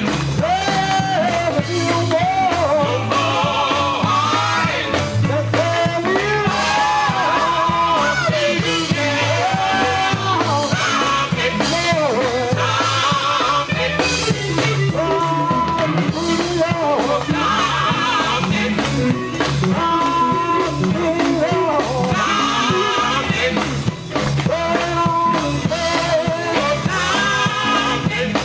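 Live gospel music from a group with a band, playing with a steady beat and a bending melody line, probably with singing.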